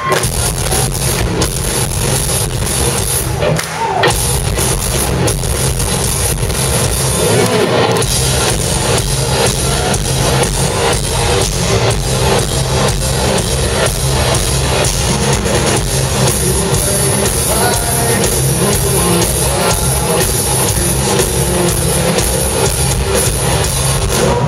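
Hard rock band playing live, loud and full, with electric guitars over a steady drum beat and no vocals, heard from within the audience.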